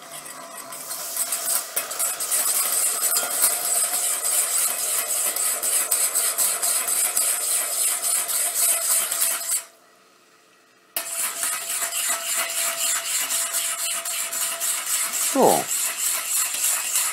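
Wire whisk scraping fast around the bottom of a stainless steel pot as asparagus stock is poured into a hot flour roux, working the roux loose from the bottom. The sound drops out for about a second just past the middle.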